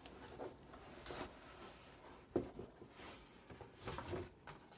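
Faint packaging handling while a boxed wall clock is unpacked: soft rustling with a few light knocks, the clearest about two and a half seconds in and again near four seconds.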